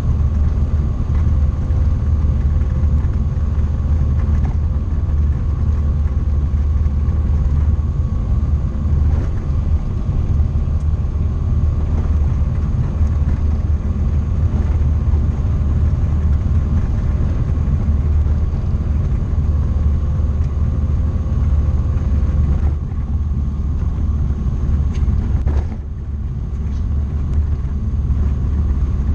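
Tecnam P2002JF light aircraft's Rotax 912 engine and propeller running, heard from inside the cockpit as a loud, steady low drone. The engine note drops slightly about 23 seconds in, drops more sharply about 26 seconds in, then builds back up.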